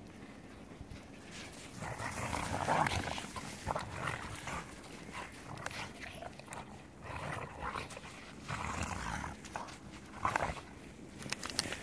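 An Airedale Terrier and a German Shorthaired Pointer play-fighting in deep snow, giving short, irregular bursts of play growls starting about two seconds in.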